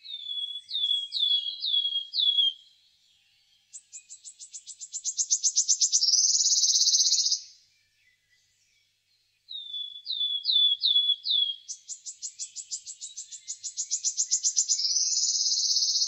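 Wood warbler singing its shivering song twice. Each song opens with a few short down-slurred notes, then a run of quick ticking notes that speeds up and runs together into a fast, shivering trill.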